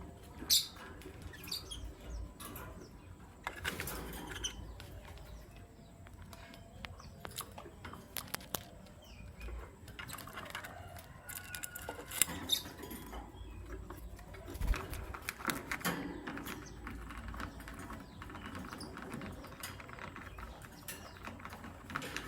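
Lovebirds giving short chirps now and then, with scattered sharp clicks and taps in between.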